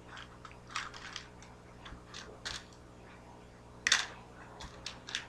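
Small clicks and light rattles of fishing hooks and a clear plastic compartment tackle box being sorted through by hand, with one sharper click about four seconds in.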